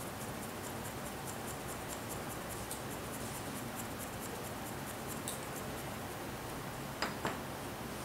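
Paper quilling strip being wound onto a slotted quilling tool: faint, rapid ticking of the paper as the tool turns, about four ticks a second, over a low room hiss. Two sharp clicks near the end.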